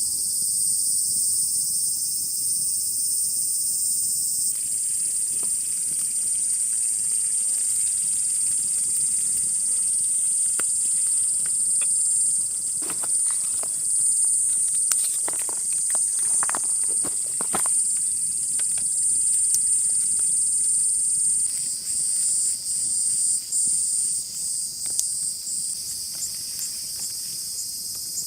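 Insects chirring steadily in a loud, high-pitched drone, with scattered short clicks in the middle of the stretch.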